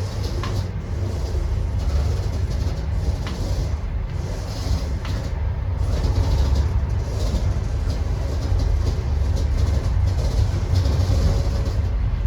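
Passenger train running on the rails: a steady low rumble with a few faint sharp clicks.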